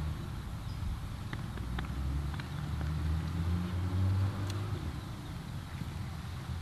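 Steady low rumble of a distant engine, a little louder about four seconds in, with a few faint clicks between one and two and a half seconds in.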